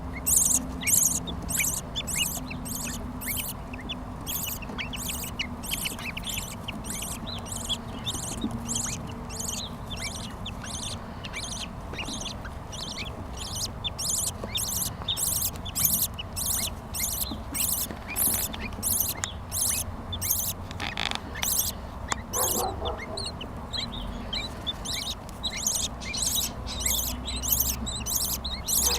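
Budgerigars calling in an aviary: a rapid, raspy, high-pitched call repeated about twice a second, with a few lower calls about two-thirds of the way through.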